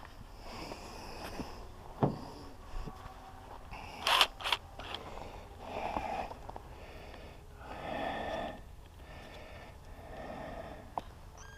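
A person breathing heavily, a slow rhythm of breaths about every two seconds, with a few sharp knocks and clicks of handling in between.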